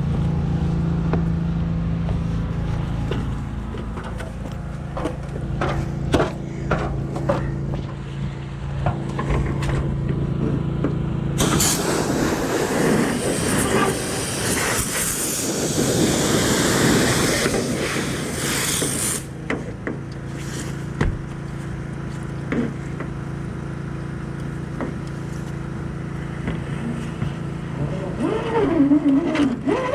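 Pressure washer's engine and pump running with a steady hum, and from about eleven seconds in, a loud hiss of high-pressure water spraying on the metal roof for about seven seconds before it stops.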